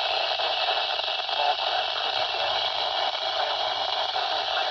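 Radio static: a steady hiss from a receiver between spoken warning messages, with no voice coming through.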